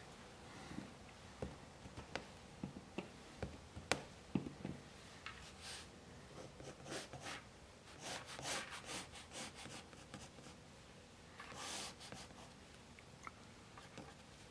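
Faint sound of a yellow wooden pencil sketching on drawing paper: a run of light ticks and short strokes in the first few seconds, then longer scratchy strokes.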